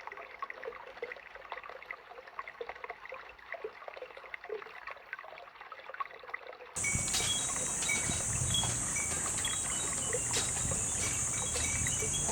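Water trickling with scattered small clicks. About seven seconds in, the sound cuts abruptly to a louder steady high hiss with glass wind bells tinkling in short bright notes.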